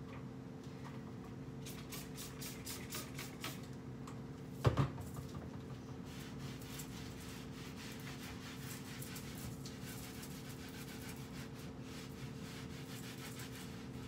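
Cloth wiping and rubbing on a kitchen cabinet door, with a quick series of short spray-bottle squirts in the first few seconds and one loud thump about five seconds in, over a steady low hum.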